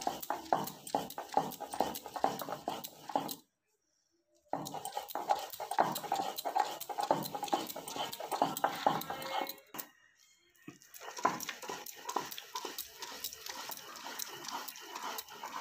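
Stone roller grinding a wet coconut, shrimp and chilli paste on a pitted stone grinding slab (shil-nora), with rapid rhythmic back-and-forth strokes of stone scraping on stone. The strokes stop for about a second after three seconds and falter briefly again about ten seconds in.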